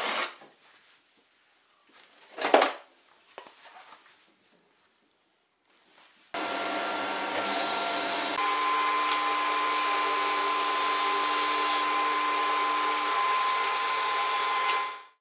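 Two short knocks of wood boards being handled in an offcut bin, then a table saw is switched on about six seconds in and its motor and spinning blade run at a steady speed with several steady tones, until the sound cuts off abruptly at the end.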